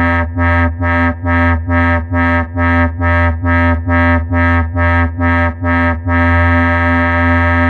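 Arturia Buchla Easel V software synthesizer playing a low held note that pulses in level about twice a second, then holds steady from about six seconds in.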